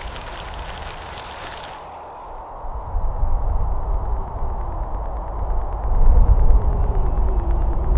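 Insects chirping: a steady high trill with a shorter chirp repeating about once a second, over a low rumble that grows louder in the second half. A hiss in the first two seconds cuts off suddenly.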